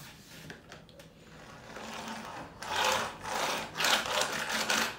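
Small plastic toy rolled across a tabletop on its little wheel, a rasping rolling noise that builds about two seconds in and comes as four loud surges.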